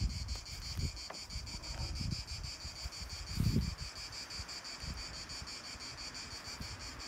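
Insects chirring in a steady, high, finely pulsing drone, with low gusts of wind on the microphone, the strongest about three and a half seconds in.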